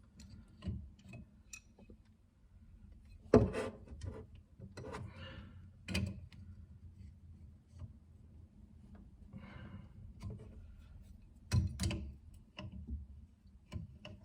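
Scattered clinks and knocks of an adjustable (crescent) wrench working on a pipe fitting as a water pressure gauge is tightened, with the loudest knock about three seconds in and some soft handling rustle between them.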